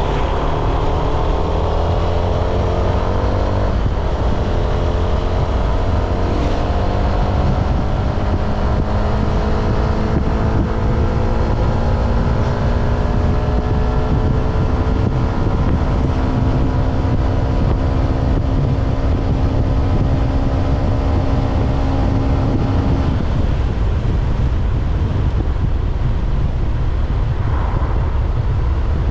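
Honda scooter engine running on the move, its whine rising slowly in pitch for about twenty seconds as it gathers speed, then dropping away about three quarters of the way through. Heavy wind rumble on the microphone.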